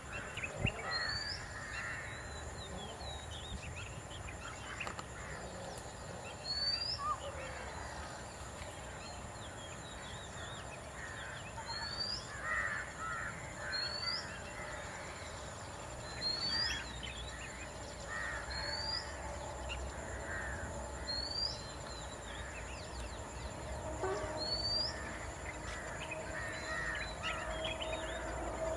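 Wild birds calling in forest: repeated harsh, cawing calls every few seconds, and a short high whistled note recurring about every two to five seconds, over a steady high-pitched drone.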